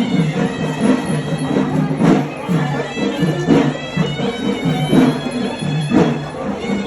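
Music led by a reedy, droning wind instrument, with drum strokes every second or so.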